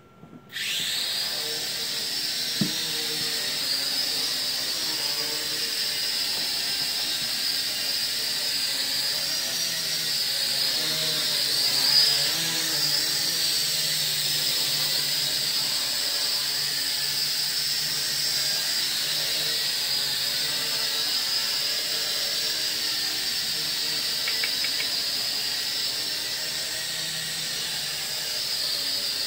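Xtreme Raptor (Mould King 33041) toy quadcopter's small motors and propellers whining steadily in flight, starting abruptly about half a second in.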